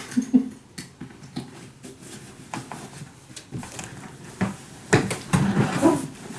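Handling of a fabric rolling duffel bag: sharp clicks and knocks from its plastic side clips, with nylon fabric rustling and bumping that grows louder about five seconds in.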